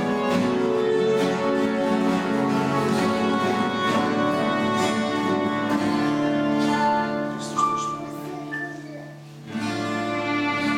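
A group of acoustic guitars strumming while a group sings a worship song with long held notes. About three-quarters of the way through, the music thins out and drops quieter for a couple of seconds, then comes back in full.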